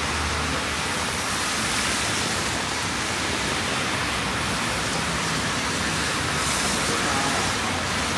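Steady rain falling, a dense even hiss with a low rumble underneath; the high hiss briefly grows about six and a half seconds in.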